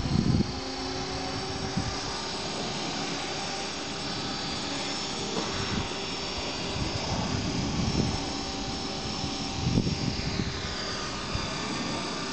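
Hexacopter's six brushless Turnigy Park 450 motors with Graupner 9.5-inch propellers buzzing in a hover, several high whines drifting up and down in pitch as the motors correct for the wind. A few low thumps of wind on the microphone, the loudest about ten seconds in.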